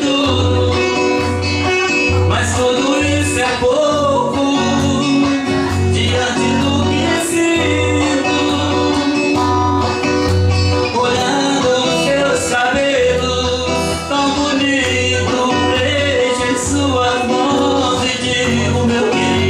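Live music: an electric guitar played with voices singing along, over a regular low bass pulse.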